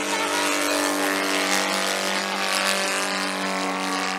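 Saito FG-61TS 61 cc horizontally opposed twin-cylinder OHV gasoline engine turning a 22x10 propeller on a 25%-scale Piper Pawnee model plane, running at a steady speed in flight. It makes an even, pitched drone.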